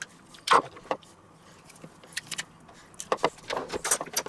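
Garlic press squeezing a clove into a plastic bowl: irregular sharp clicks and clacks from the hinged press handles.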